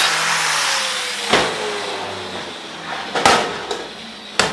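Angle grinder with an abrasive disc grinding mill scale off a steel plate, then switched off and spinning down with a slowly falling whine. Three sharp knocks, about a second in, past three seconds and near the end.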